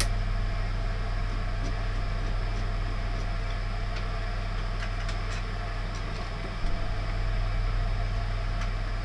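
A steady low mains hum in a small plant room, with a few faint clicks and taps of a screwdriver working an old circuit breaker loose in a fuse board. One sharper click comes about two-thirds of the way in.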